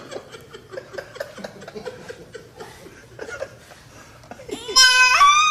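Soft chuckling laughter, then near the end a loud, high-pitched squealing voice that rises in pitch for about half a second.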